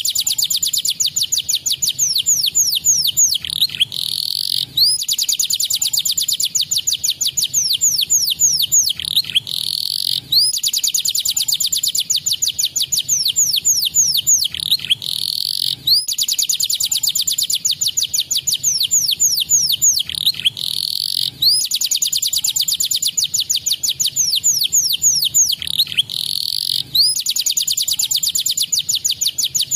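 Domestic canary singing a fast, rolling song of rapid trills and falling whistles. The same phrase restarts about every five and a half seconds after a brief break, as a looped training recording for pet canaries.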